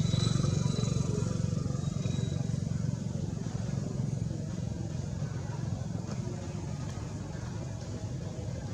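A low engine hum that fades away over the first few seconds, leaving a quieter steady low rumble.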